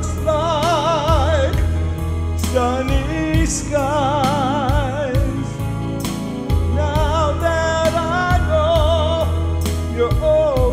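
Instrumental break in a pop ballad: a lead melody with wide, wavering vibrato over a steady bass line and a light, regular beat, from a synthesized backing track of General MIDI instrument sounds (Roland Sound Canvas / SD-50).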